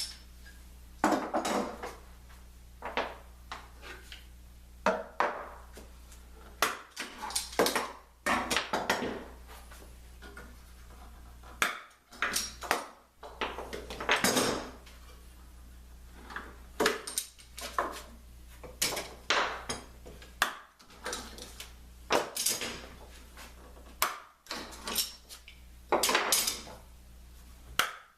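Clamps being loosened and taken off a glued plywood lamination, one after another: irregular clanks of metal clamp parts and knocks of wood blocks, with short scrapes as they are slid off and set down.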